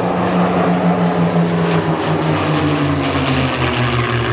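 A P-51D Mustang and a Spitfire Mk XVI flying past in formation, their Merlin V-12 piston engines running together. The engine note drops in pitch about halfway through as they go by.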